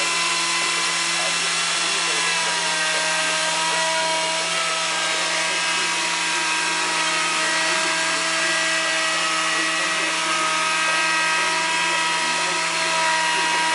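Electric wood lathe running steadily: a constant motor hum with a high whine over a steady hiss. The whine shifts slightly in pitch a couple of times.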